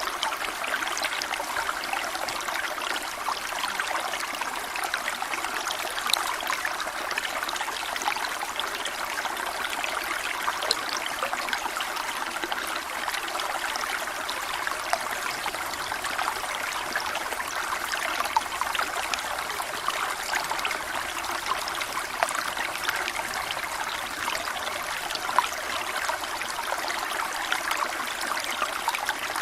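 Waterfall water running and splashing steadily, with a trickling texture and an occasional sharper splash standing out.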